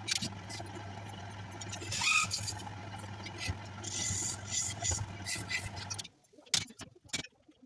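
Wood lathe running with a steady motor hum while a turning tool scrapes and cuts the spinning wood in uneven rasping strokes; the hum and scraping cut off suddenly about six seconds in, leaving a few light clicks.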